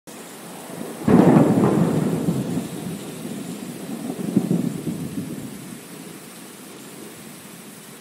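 Thunder sound effect: a sudden crack about a second in that rolls into a deep rumble, swells again near the middle and fades out over a steady hiss.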